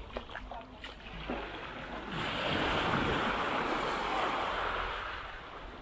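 A wave breaking and washing up the beach: a hiss that swells about two seconds in and dies away before the end, over a low steady rumble of wind on the microphone.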